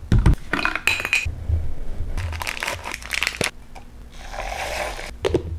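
Chocolate milk being poured from a plastic bottle into a plastic Ninja Creami pint container, with clicks and crinkling of the plastic as it is handled. A few clicks near the end as the pint's lid is pressed on.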